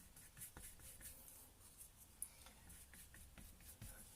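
A run of faint, short, scratchy strokes of a large 30mm synthetic brush laying acrylic paint onto the painting surface.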